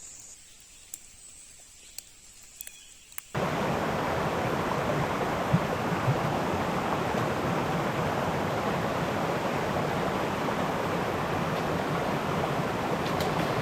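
Steady rushing of a rain-swollen mountain stream, starting abruptly about three seconds in; before it, a few light ticks over quiet.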